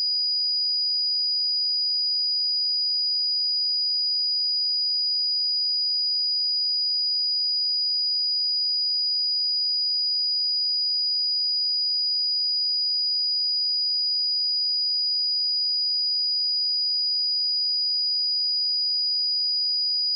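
A pure 4912 Hz sine-wave test tone: a single high-pitched steady whistle, unchanging in pitch and loudness.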